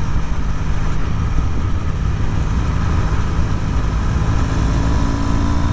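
Triumph T100 motorcycle's parallel-twin engine running steadily at highway speed, about 50 to 60 mph, as a steady low drone with road and wind noise over it.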